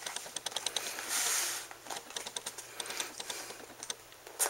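Plastic clicks and rattles of a blue fibre-optic jumper connector being pulled from and refitted to an inspection scope's connector holder, with a short hiss about a second in and one sharp click near the end.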